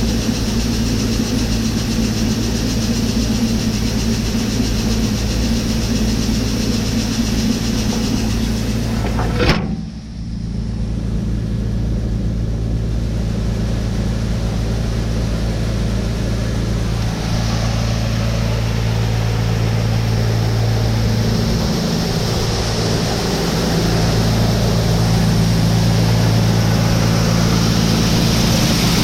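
Heavy farm-machinery engine running steadily under load with a constant low drone. About nine and a half seconds in there is a sudden break, after which the high hiss drops away and the engine note carries on.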